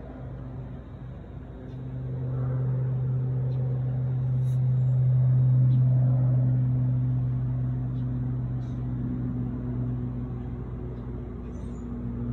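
A steady low machine-like hum with one even pitch, swelling louder through the middle and easing off again, with a couple of faint clicks.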